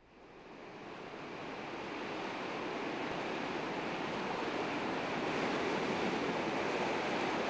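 Ocean surf: a steady wash of waves fading in over the first couple of seconds, then holding even.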